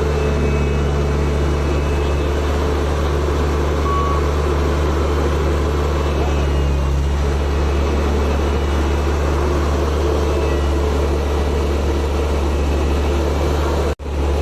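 Heavy diesel engine running steadily with a deep drone. It cuts out briefly near the end.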